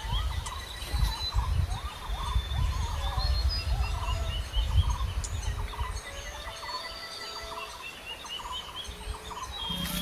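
A chorus of forest birds calling and chirping, with many short repeated notes and trills at several pitches. Beneath them is a low rumble that eases off about six seconds in.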